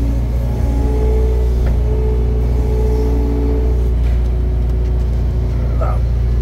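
A vehicle engine running steadily, with a loud low drone and a few fainter tones above it that come and go. There is a light click a little under two seconds in, and a short squeak near the end.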